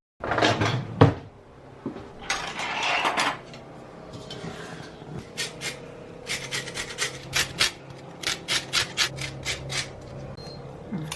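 Lemon being zested on a fine rasp grater: two longer rasping strokes, then a run of quick short strokes, about two to three a second.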